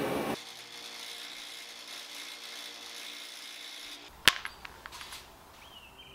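Bench buffer with a wire wheel running with a faint steady hum; a little over four seconds in a rusty steel screw meets the spinning wheel with one sharp metallic click, followed by a few lighter ticks.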